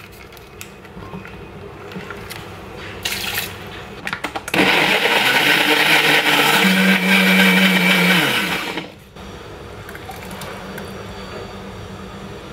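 Countertop glass-jar blender running for about four seconds, blending banana, raspberries and blueberries into a smoothie, then spinning down with a falling pitch as it is switched off.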